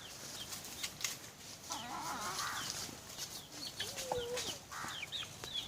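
Chickens: many short high falling peeps scattered throughout, with a few lower clucks in between.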